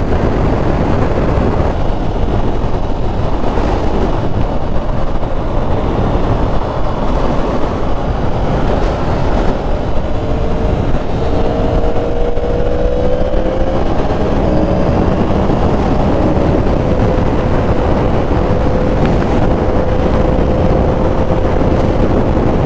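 Heavy wind rush on the microphone while riding a 2023 Yamaha R1 sport bike at highway speed. Its inline-four engine drones underneath; about ten seconds in the engine note rises a little, then holds steady.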